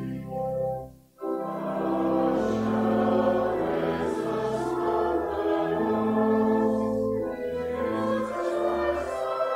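A congregation singing a slow hymn in long held notes, with accompaniment. There is a short break between lines about a second in.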